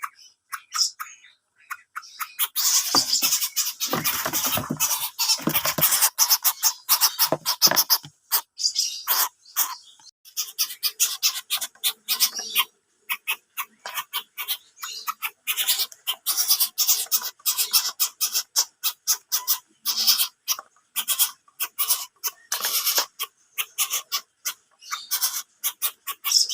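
Coucal giving strange, harsh calls: rapid dry clicking, with a longer harsh rasping stretch from about three to eight seconds in.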